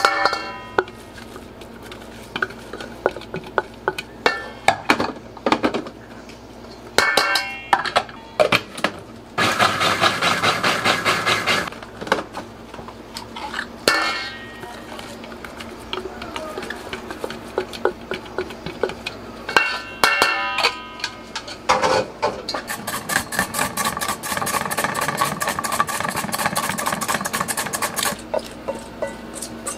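A silicone spatula scrapes and knocks against a stainless steel mixing bowl as chopped egg is scraped out of a food processor bowl, with a dense stretch of scraping noise about a third of the way in. Near the end comes a run of quick, even strokes as a cucumber is julienned on a plastic mandoline slicer.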